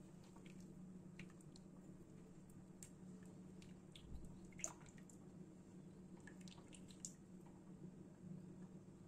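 Faint wet squishing and a few light clicks of a spatula stirring rice through masala liquid in a cooking pot, over a steady low hum.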